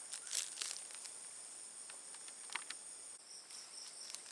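Night insects such as crickets chirring steadily in high, thin tones; a little after three seconds one voice drops out and a faster pulsing chirr is left. A few short clicks sound near the start and about two and a half seconds in.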